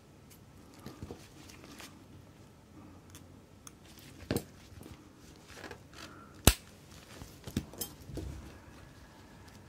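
Scattered small clicks and taps of watchmaking tools and small metal parts being handled on a bench. The sharpest click comes about six and a half seconds in.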